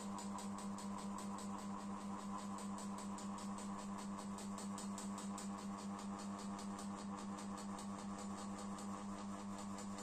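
GMC FC-06-600 mini ceiling fan running, a steady motor hum with a rhythmic pulsing from the spinning blades. The fan is noisy and wobbly because one of its blades is badly bent.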